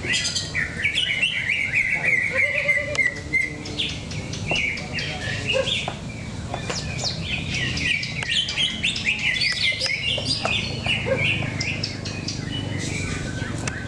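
Several caged green leafbirds (cucak ijo) singing at once: dense, overlapping chirps and quick note runs, one of them a falling string of notes near the start.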